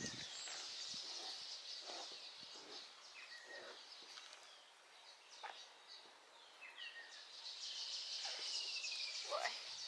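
Outdoor ambience: birds give short chirps and, near the end, a longer falling call, over a steady high-pitched hiss.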